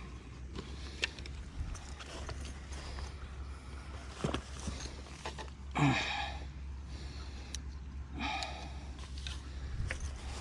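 A person's breathing: short breathy sniffs or breaths, one just before the start, one about six seconds in and one about eight seconds in, with a few faint clicks over a steady low hum.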